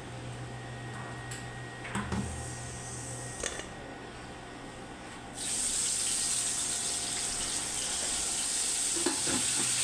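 A few light clinks of a utensil against a wok over a low steady hum, then about five seconds in a loud, steady sizzling hiss of food frying in the hot pan starts suddenly.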